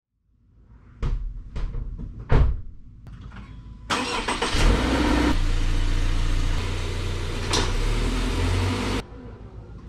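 A few sharp clicks and knocks, the loudest a car door shutting, then a 2021 Subaru Forester's 2.5-litre flat-four engine starting and running steadily as the car pulls away. The engine sound cuts off abruptly near the end.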